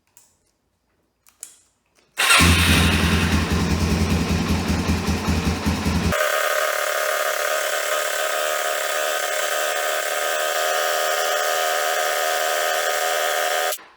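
Suzuki DR-Z400's single-cylinder four-stroke engine starting suddenly about two seconds in and then running steadily at idle, freshly refilled with oil and left running so the oil circulates before the level is rechecked. The low rumble drops out abruptly about six seconds in, and the sound cuts off just before the end.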